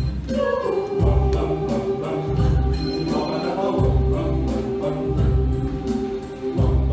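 Mixed choir of men's and women's voices singing, holding a long note over a pulsing low beat.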